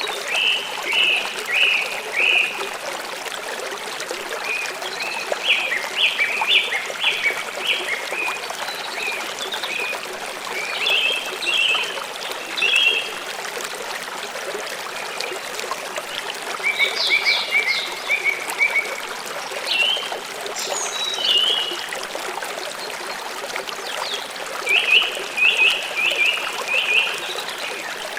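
Steady rush of a waterfall, with a bird singing short bursts of quick, repeated chirps about every few seconds over it.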